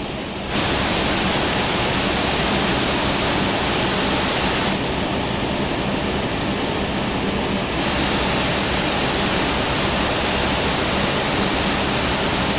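Steady rushing cockpit noise of an Airbus A380 taxiing in after landing, with a low hum under it. A high hiss cuts in abruptly about half a second in, drops out near five seconds and returns near eight seconds.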